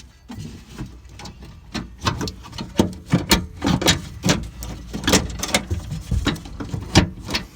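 Irregular clicks, knocks and rattles of the loosened door lock unit being worked free inside the car door, metal and plastic parts knocking against the door shell. They come thicker from about two seconds in.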